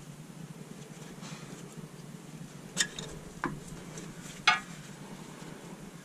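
A few small sharp clicks and clinks of a screwdriver working the plastic retaining clips of the ABS sensor harness free at the front wheel knuckle, four in the middle stretch with the loudest near the end, over a faint steady hiss.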